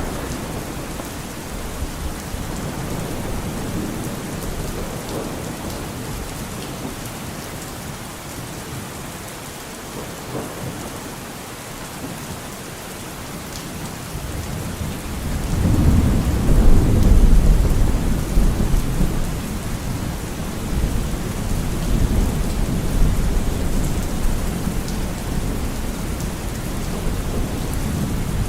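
Steady rain falling, with a long low roll of thunder that swells up about halfway through and rumbles on, fading slowly.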